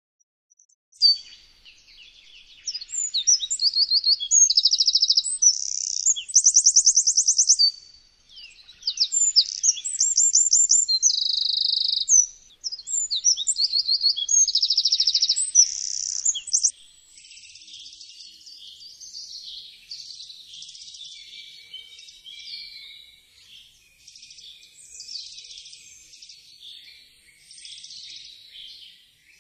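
Eurasian wren singing: four loud phrases of rapid trills and high, ringing notes, each a few seconds long with short pauses between them. After about seventeen seconds it gives way to a fainter, scratchier, jumbled wren song that runs on until near the end.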